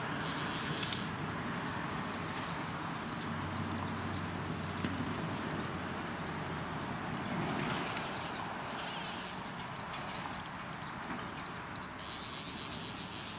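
Steady outdoor background noise by a slow river, with a few faint high chirps and three short spells of high insect buzzing: one at the start, one about eight seconds in, and one near the end.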